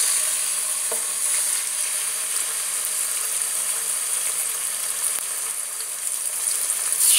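Beef steak sizzling as it sears in hot oil in a stainless steel pan: a steady frying hiss that grows louder near the end.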